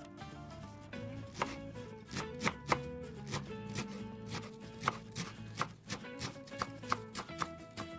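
Kitchen knife chopping fresh mint on a wooden cutting board: quick, uneven knocks of the blade against the board, a few a second, starting about a second in.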